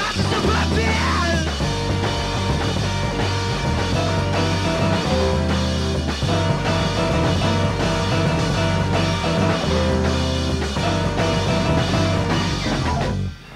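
Background rock music with guitar and a repeating bass line, cutting off shortly before the end.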